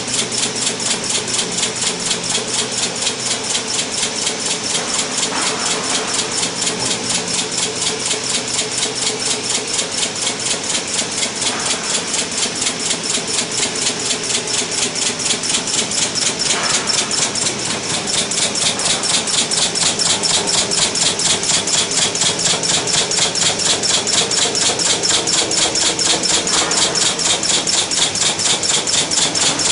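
Industrial machine working a stainless-steel sink, running steadily with a fast, even pulsing and a strong high-pitched hiss.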